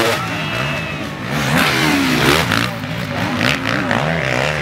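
MX1 motocross bike engines revving hard as riders pass, the pitch sweeping up and dropping back again and again with the throttle and gear changes.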